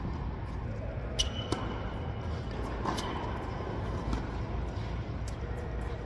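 Tennis doubles rally on an indoor hard court: sharp pops of rackets striking the ball and of the ball bouncing, a few in all, over a steady low hum.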